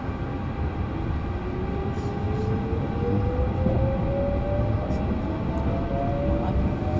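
MI09 RER commuter train running, its traction motors giving a whine that rises steadily in pitch as it gathers speed, over a steady rumble of wheels on the track.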